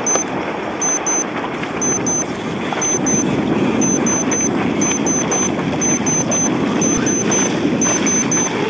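Wind and water rushing over the microphone, with high electronic pips in quick little clusters about once a second from a countdown timer running down the final seconds to a sailing race start.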